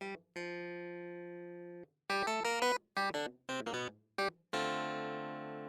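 Background music: quick runs of short plucked-sounding notes broken by brief gaps, with two long held notes that slowly fade.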